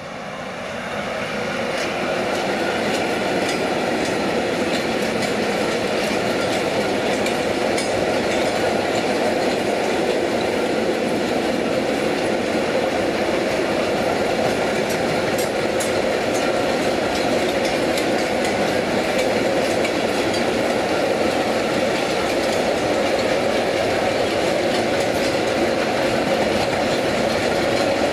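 A freight train passing close: a Traxx electric locomotive followed by a long string of hopper wagons, its wheels rumbling steadily on the rails with scattered clicks. The sound builds over the first two seconds as the locomotive draws level, then holds steady as the wagons roll by.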